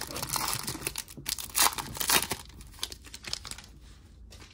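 Foil wrapper of a Panini Prizm basketball card pack being torn open and crinkled in the hands, a crackling that is loudest in the first couple of seconds and dies down near the end.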